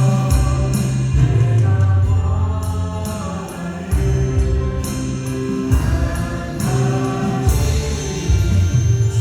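A praise band plays a contemporary worship song: several voices singing together over keyboards, drums and acoustic guitar, with a steady bass and regular drum hits.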